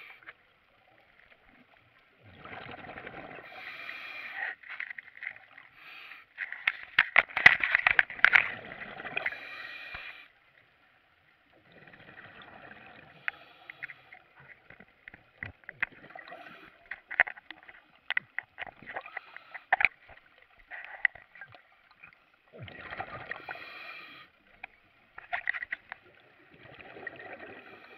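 Scuba diver breathing underwater through a regulator: bursts of exhaled bubbles a few seconds long, full of small pops, with short pauses between breaths.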